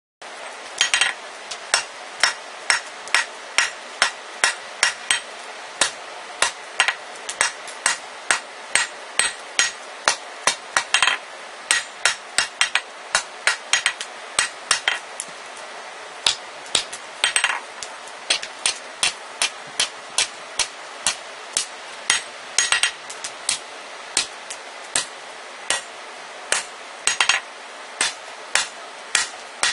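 Hand hammer striking red-hot rebar on a steel anvil in a steady rhythm of about two blows a second, flattening the glowing end. Every few seconds a blow rings on longer than the rest.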